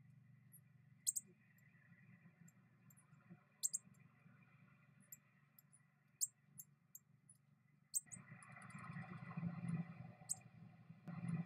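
Northern cardinal giving short, sharp, high chip notes, one every second or two, over a faint low hum. About eight seconds in, a louder steady outdoor background noise comes in under the chips.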